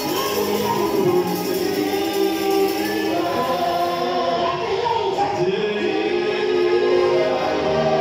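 Several voices singing a gospel worship song together, led by a man singing into a microphone.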